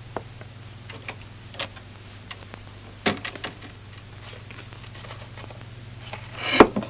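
Irregular light clicks and knocks over a steady low hum, with a louder, noisier knock-like sound about six and a half seconds in.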